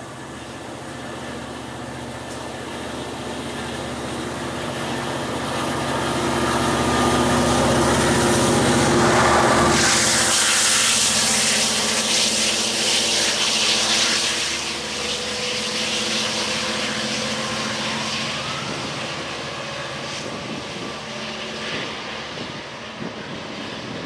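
Diesel push-pull commuter train passing beneath and pulling away. The sound builds as the coaches go by and is loudest about ten seconds in, when the diesel locomotive passes directly below with a rush of its exhaust. Its engine drone then slowly fades.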